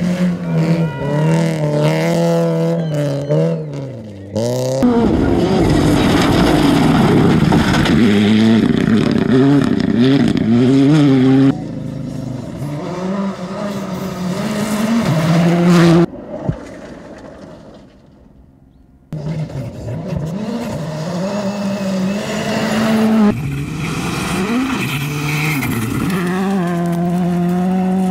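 Rally car engines on a gravel stage, heard over several separate passes: revving hard, the pitch climbing and dropping again and again through gear changes, with gravel spray and tyre noise. The sound changes abruptly a few times between passes, with a quieter stretch about two-thirds of the way through.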